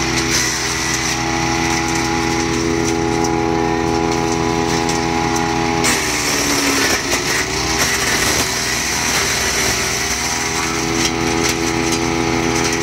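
Scanwood Grizzly woodchipper's engine running steadily. About halfway through its note sags with a burst of rough noise and climbs back over a couple of seconds, the engine taking load as wood goes through the chipper.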